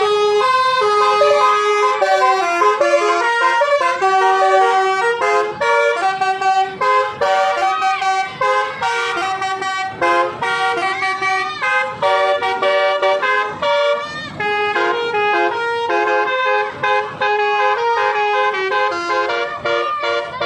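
Telolet horns, the multi-tone musical air horns of Indonesian buses, playing quick stepped tunes with several notes sounding at once and short breaks between phrases, horns trading tunes in a telolet battle.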